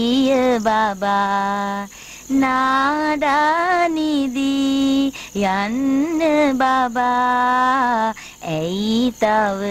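A woman singing a lullaby solo, in long held notes that waver slightly, phrase after phrase with short breaks for breath.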